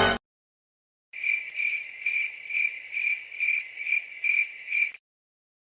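Stock crickets-chirping sound effect: a steady series of about nine high chirps, roughly two a second, after a second of silence. It is the familiar comedy cue for an awkward silence.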